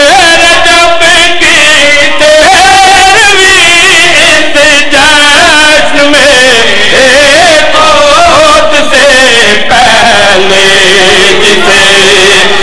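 A man chanting a verse of Urdu devotional poetry in long, ornamented melodic lines with held notes and wavering pitch, loud and amplified through a microphone.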